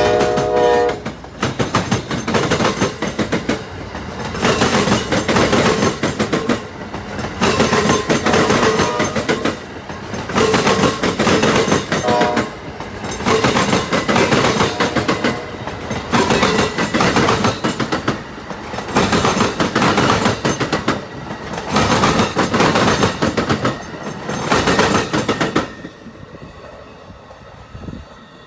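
Amtrak passenger train passing over a railroad diamond crossing. The horn ends about a second in and sounds once more briefly near the middle. The wheels pound over the diamond in loud bursts about every two seconds, car after car, until the train clears near the end and the sound drops away.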